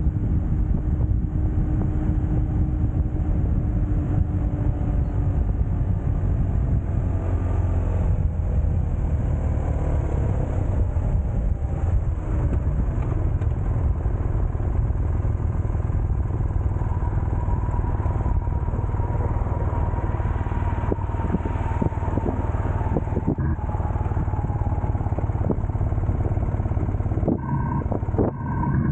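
Vehicle engine running at road speed, with a constant low road-and-wind rumble underneath. The engine tone sinks a little in the first half and rises slowly after the middle.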